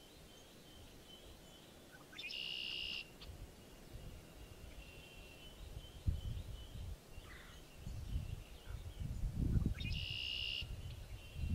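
Outdoor swamp ambience: a bird gives two short buzzy trills about eight seconds apart over a faint, steady high trilling. Low wind rumble on the microphone comes in about halfway through.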